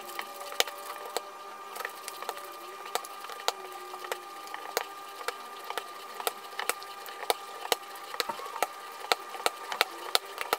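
Soft, sticky yeast dough being kneaded by hand on a stone countertop while butter is worked into it: a string of short, irregular slaps and squelches, about one or two a second.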